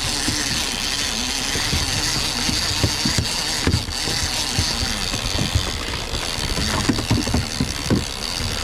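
Charter fishing boat's engine running steadily under way, with irregular low thumps and rushing noise.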